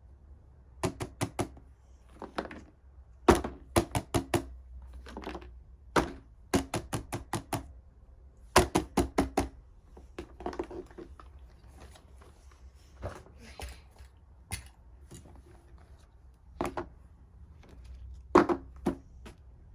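Silicone pop-it fidget toy being pressed: sharp pops in quick runs of three to five, with single pops between them.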